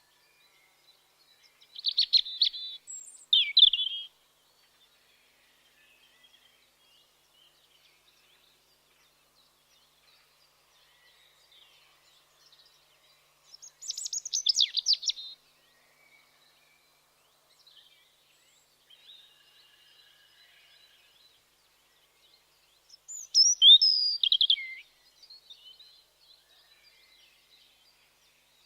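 European robin singing: three short, high, warbling phrases, each a second or two long, separated by pauses of about ten seconds, with faint chirps in between.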